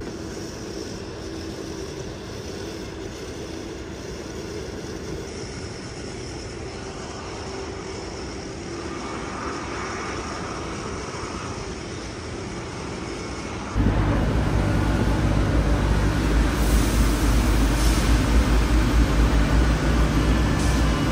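Steady travel noise of a running vehicle or transport, then about fourteen seconds in an abrupt cut to a much louder, deeper drone with a steady low hum.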